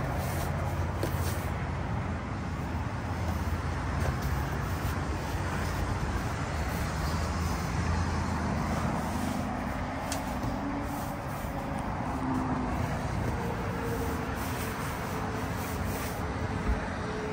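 Road traffic noise from passing cars: a steady low rumble, with a faint hum coming in about halfway through.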